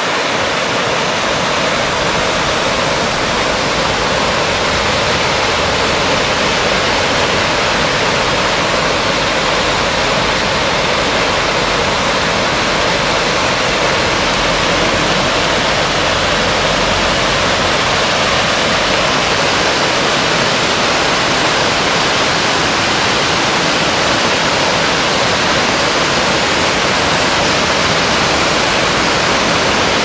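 Small waterfall falling over rock in two streams, a steady rushing of water.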